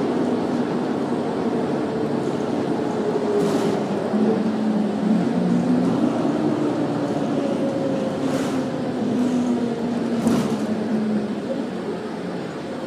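Bus engine and drivetrain running as the bus drives along, heard from inside the cabin over steady road noise. The engine's pitch rises and falls with the gear changes. Three brief hisses cut through it.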